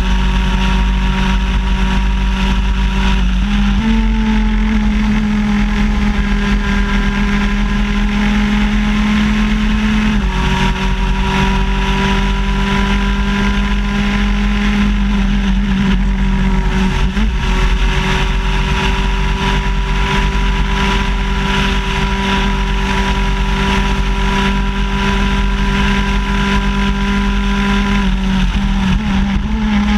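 Shifter kart's 125cc two-stroke engine running hard at high revs, heard close up from the kart itself. Its pitch holds mostly steady, stepping up slightly a few seconds in, dropping about ten seconds in, and dipping again near the end.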